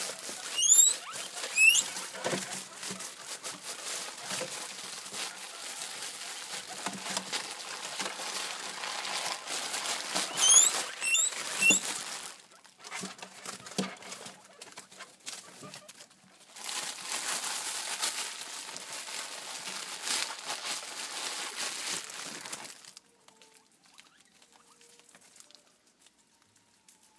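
Hungry guinea pigs wheeking for food: short rising high-pitched squeals in two runs, near the start and about ten seconds in, over steady rustling and scrabbling in wood-shaving bedding. The rustling stops about 23 seconds in.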